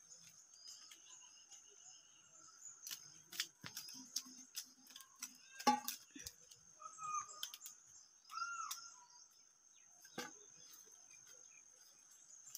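Faint outdoor ambience: insects drone steadily on a thin high note while a bird gives a couple of short chirps. Scattered clicks and rustles come from a sickle cutting and handling leafy siudi (milk-hedge Euphorbia) stems.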